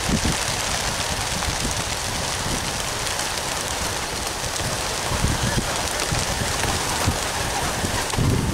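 Wings of a large flock of pigeons flapping as they take off en masse from a transport truck, a dense, steady crackle of wingbeats, with birds passing close by.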